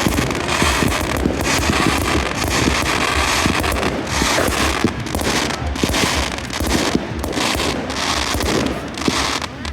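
Fireworks going off in a dense, continuous barrage of crackles and pops, swelling and easing in waves.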